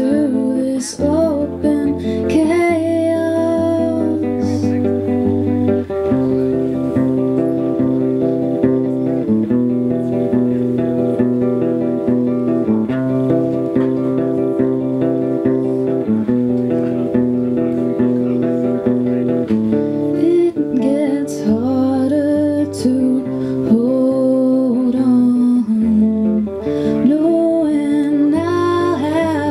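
A woman singing while playing an acoustic guitar, her voice most prominent near the start and again in the last third over steadily ringing chords.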